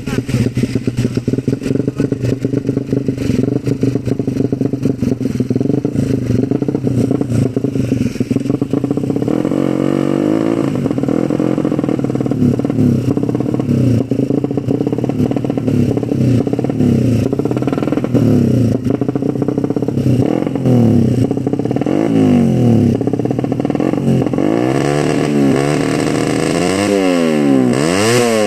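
Race-tuned Suzuki Satria FU motorcycle engine with a ported head, running at a steady fast idle and then revved again and again in rising and falling blips that grow bigger and closer together near the end.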